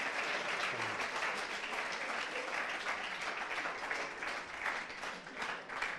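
Studio audience applauding a guest's entrance, the clapping thinning into more scattered separate claps near the end.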